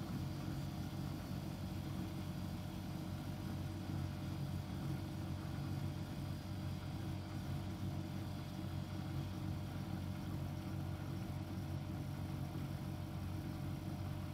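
Miele Novotronic W715 front-loading washing machine in a rinse, its drum motor running with a steady hum as the wet duvet load turns in the water.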